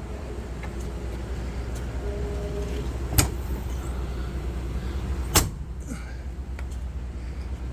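Two sharp clacks about two seconds apart, typical of an RV's exterior storage compartment door being shut and latched, over a steady low rumble.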